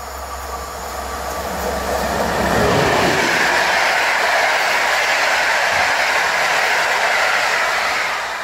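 PKP Intercity passenger train hauled by an EP09 electric locomotive passing at speed, its wheels running on the rails. The noise builds as the locomotive goes by about three seconds in, stays loud and steady while the coaches roll past, and falls away near the end.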